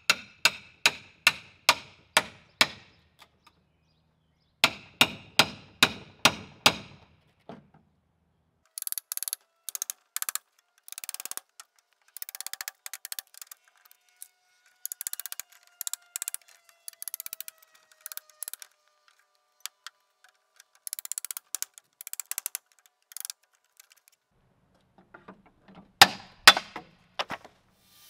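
A hammer driving a nail in a quick run of evenly spaced ringing blows, about three a second, then a second short run. Scattered clicking and clattering follow, and two or three hard blows land near the end.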